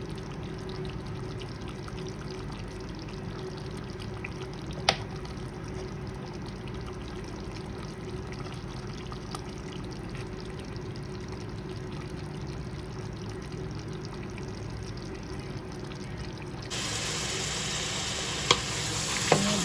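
Chicken curry cooking in a pan on the stove: a steady low noise with a couple of sharp clicks. Near the end it switches abruptly to a louder, brighter sizzle.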